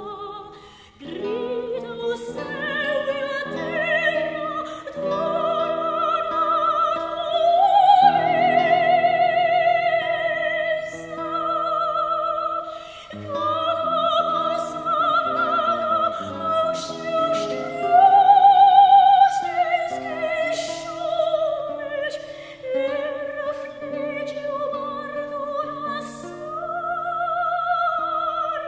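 Background music: an operatic voice singing long, held notes with a wide vibrato over a soft instrumental accompaniment.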